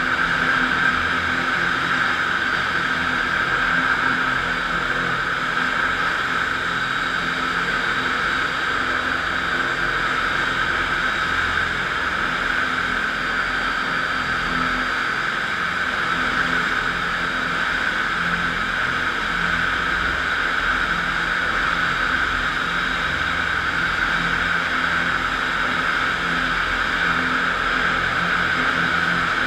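Electric, belt-driven concrete floor grinder running steadily while its 16-grit single-rhombus diamond grinding plates cut into a concrete floor: a constant loud whir and grinding hiss with no change in load.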